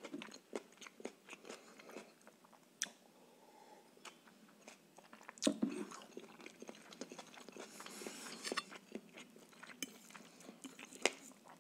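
Close-miked chewing of rice noodles and marinated mussels: many small wet mouth clicks, with a louder click about five and a half seconds in.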